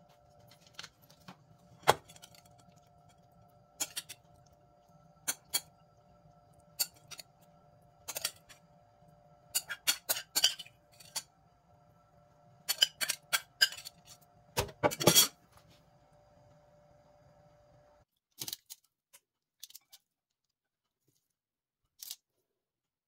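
Scattered clinks and clatters of kitchen utensils against cookware, loudest in a quick cluster about two-thirds of the way through, over a steady low hum that cuts off suddenly near the end.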